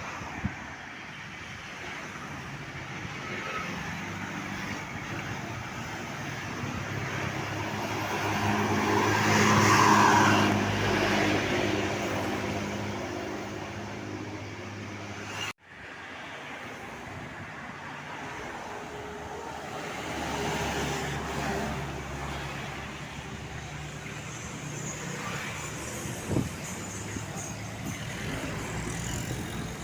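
Road traffic with large vehicles, likely buses, passing. An engine swells to its loudest about ten seconds in and fades away. The sound cuts off abruptly about halfway through, and steady traffic noise resumes.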